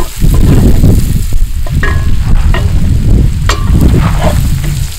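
Wooden spoon stirring sliced onions, garlic and oregano sizzling in a cast iron Dutch oven, with several sharp knocks and scrapes of the spoon against the pot over a steady low rumble.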